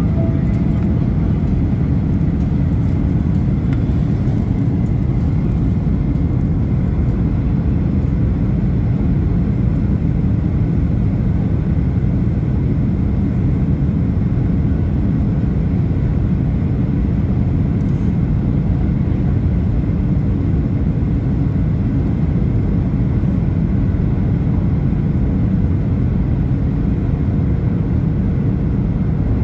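Jet airliner cabin noise in flight: a steady low rumble of engines and rushing airflow, even in level and pitch throughout.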